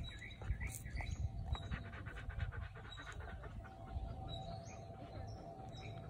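A dog panting in quick, even breaths close by, with small birds chirping in the background.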